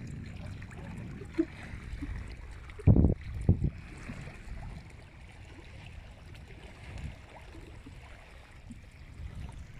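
Small waves lapping and splashing against a rocky lakeshore, with wind rumbling on the microphone. Two short, loud low buffets come about three seconds in.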